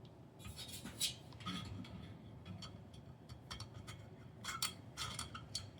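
Small irregular clicks and clinks of a rack-mount screw with a plastic washer being fitted and turned in by hand with a Phillips screwdriver, with a quick run of clicks near the end.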